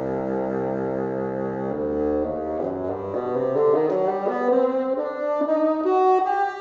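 Solo bassoon holding a long, low, wavering note, then playing a run of quick notes that climbs steadily in pitch.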